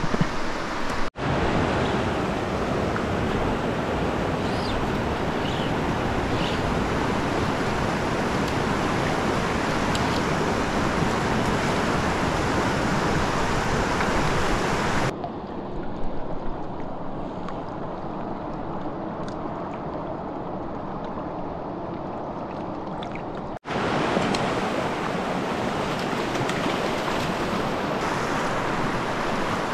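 Stream water rushing over rocks in rapids, a steady loud wash. It is cut off briefly twice, and sounds duller for several seconds in the middle.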